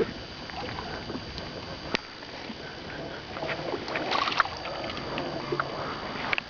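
Small fishing boat on the water, with a steady wash of water and scattered small clicks and knocks from gear being handled; one sharper knock comes about two seconds in and a flurry of clicks about four seconds in.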